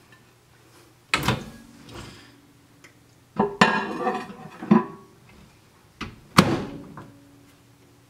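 A microwave oven door opened and shut and a plate set down inside, heard as about five sharp knocks and clunks spread over several seconds, some ringing briefly. The loudest clunk comes near the end.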